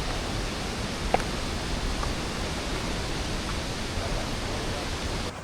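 Steady, even rush of water from a river waterfall, ending abruptly near the end.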